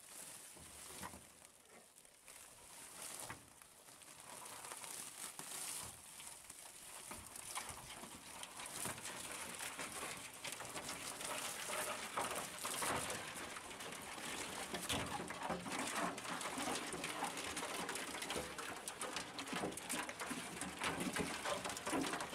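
Mangrove crabs' legs and claws clattering and scratching on a pickup truck's ribbed metal bed as they scramble out of a cloth sack, with the cloth rustling. The scratching grows denser and louder after the first few seconds as more crabs come out.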